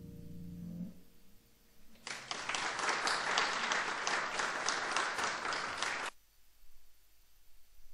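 The last notes of a concert harp ringing out and fading, then an audience applauding for about four seconds, stopping abruptly.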